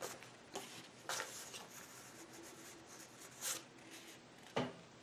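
Faint handling of planner sticker sheets and paper: a few soft rustles and brushes, and a light tap near the end.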